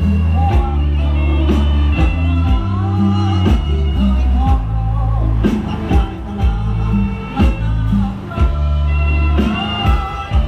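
A rot hae band playing a Thai luk thung song with a singer, heavy bass and a drum hit about once a second.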